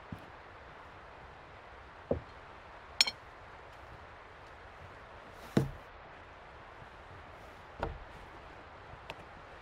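A handful of separate knocks and clinks on a wooden picnic table as a plate of food is set down and someone sits at it. A ringing clink about three seconds in, a louder wooden knock about halfway, then softer knocks near the end.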